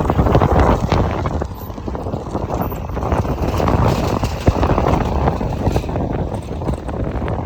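A vehicle passing, with wind buffeting the microphone and irregular knocks.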